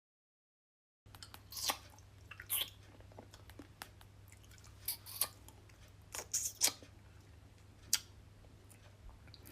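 A string of irregular, sharp crunchy clicks over a low steady hum, starting about a second in after a moment of silence.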